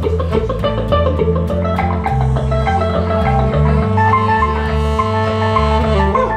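Live band playing an instrumental passage: an electric bass line steps along underneath while an electric guitar plays, and a long note is held from about half a second in until near the end.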